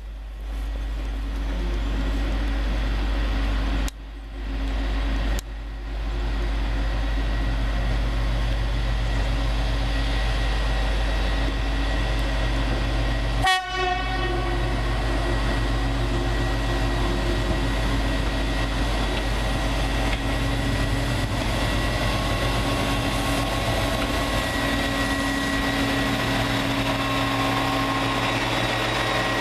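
The V5 rail vehicle's engine running steadily as it rolls slowly in and passes close by. About halfway through there is one brief, sharp sound.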